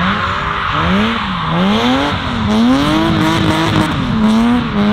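BMW E36 328i's straight-six engine revving up and down several times as the car drifts, with tyre squeal.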